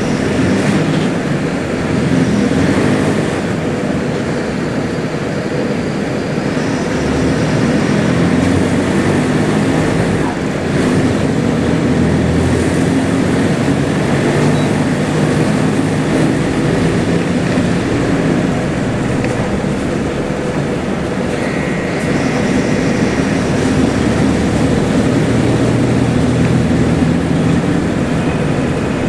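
Diesel engine of a bus on a Mercedes-Benz OF-1721L Euro 5 chassis, running loud, its pitch rising and falling as engine speed changes.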